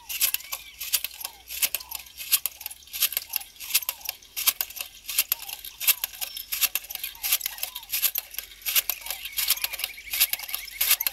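Hand jab planter (matraca) loaded with corn seed, rattling and clinking as it is jabbed into the soil stroke after stroke while walking. A quick, irregular clatter of many small clicks.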